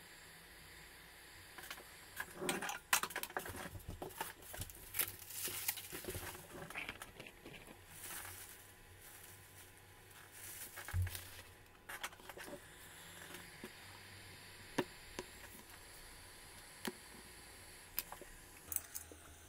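Small hand tools and tablet parts being handled during a screen repair: several seconds of scraping and rustling with many small clicks, then scattered single clicks and taps.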